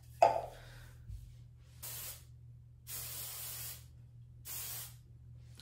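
Aerosol hair spray can spraying in three short bursts of hiss, the middle one the longest, after a brief sharp sound at the very start.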